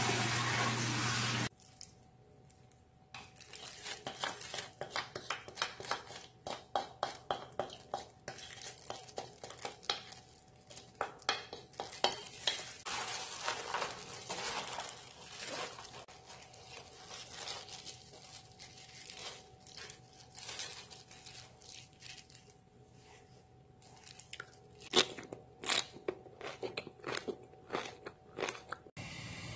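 Tap water running over napa cabbage in a steel colander for about a second and a half. Then, after a short lull, plastic-gloved hands toss and squeeze cabbage leaves with chili seasoning in a stainless steel pot, mixing kimchi: a long run of crinkling and crunching, with a few sharper clicks near the end.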